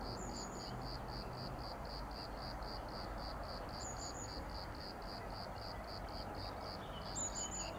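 A cricket chirping in a steady rhythm, about four short high chirps a second, over a steady low background rumble. A few brief higher squeaks sound now and then, the loudest near the end.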